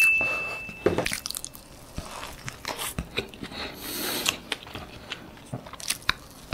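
Close-miked mouth sounds of eating thick, soft French toast topped with cream and berries: wet chewing and small clicks, then a bite into the toast near the end. A short, steady high beep sounds at the very start.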